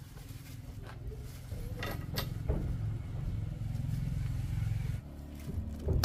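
Low, steady engine hum with several sharp knocks in the first half; the hum cuts off about five seconds in.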